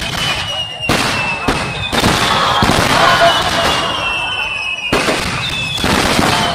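Aerial firework shells bursting: several sharp booms about a second or so apart, with dense crackling from the bursts through the middle. Thin high whistles slide slowly down in pitch through it.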